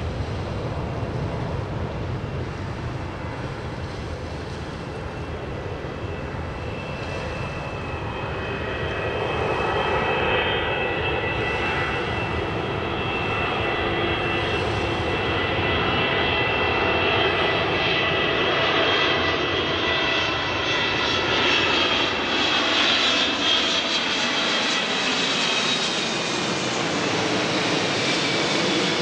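Boeing 777-200ER's twin turbofan engines on final approach with gear down, growing louder as the jet nears, a high fan whine rising out of the rumble about a third of the way in. Near the end, as it passes overhead, the sound sweeps down in pitch.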